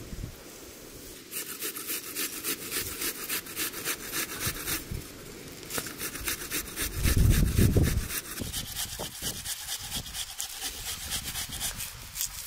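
Fast, even scraping strokes, about five a second, of food being worked by hand with a blade or grater, with a short break about five seconds in. About seven seconds in there is a loud low rumble.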